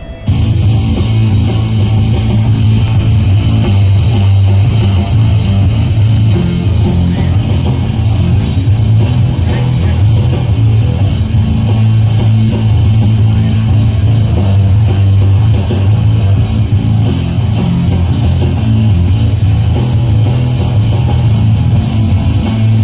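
Loud rock music with heavy electric guitar and drum kit, playing steadily; it kicks in just after the start.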